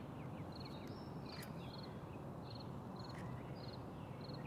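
Birds chirping in the background: short rapid trills and quick falling notes, repeated every half second or so, over a steady low outdoor hum, with a few faint ticks.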